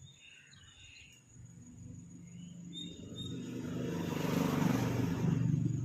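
A motor vehicle passing close by: its engine hum and road noise build up over a few seconds and are loudest near the end.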